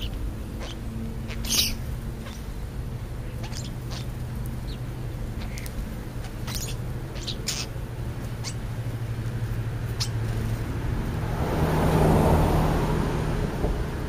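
A steady low engine hum that swells as a vehicle passes about twelve seconds in. Short, sharp calls from feeding starlings and sparrows are scattered through it.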